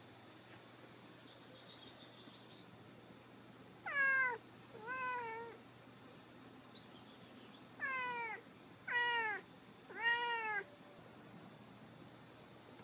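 A young tabby cat meowing five times: two meows about four seconds in, then three more in quick succession around eight to ten seconds. Each call drops in pitch and sounds like a baby crying.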